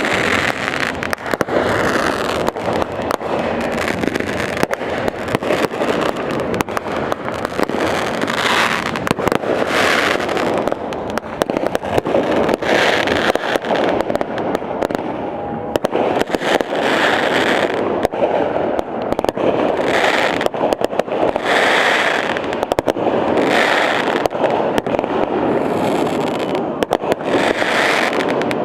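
Fireworks display: a dense, unbroken run of bangs and bursts, with a brighter burst every second or two.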